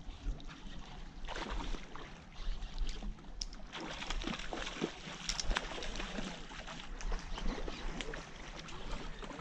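Hooked salmon thrashing and splashing at the river surface as it is played in, in irregular splashes from about a second in.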